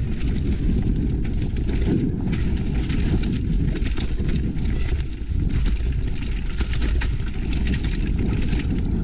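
Mountain bike ridden fast down a dirt trail, heard from a body-mounted GoPro: a steady low rumble of wind and tyres on the ground, with frequent sharp clicks and rattles as the bike goes over bumps.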